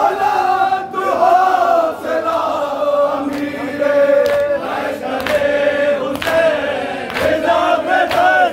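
Men chanting a noha, a Shia mourning lament in Urdu: a lead reciter with the crowd singing along. From about halfway through, sharp slaps about twice a second join the chant, the rhythm of hands beating on chests (matam).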